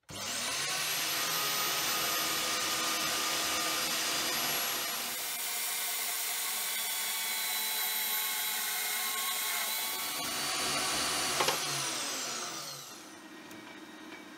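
Portable band saw starting with a rising whine, then running steadily while cutting through aluminium round bar, and winding down with a falling whine about twelve seconds in. A quieter steady hum of the metal lathe running follows near the end.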